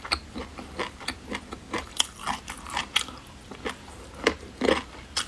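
Close-up chewing of spicy boneless chicken feet, an irregular run of short wet crunches and clicks.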